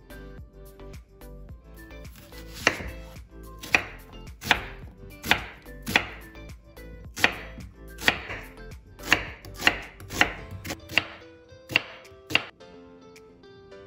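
A kitchen knife slicing a red onion on a wooden cutting board: about fourteen sharp chops, spaced roughly half a second to a second apart. The chops start a couple of seconds in and stop shortly before the end.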